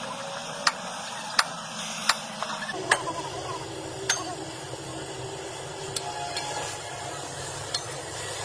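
Sharp knocks over a steady hiss: four at first, about two thirds of a second apart, then one more and a few fainter ones.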